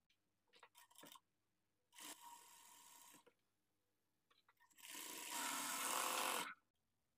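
Sewing machine stitching darts on a blouse's back piece, running in short spurts: a few brief stitches about a second in, a run of about a second, then a longer, louder run of about two seconds.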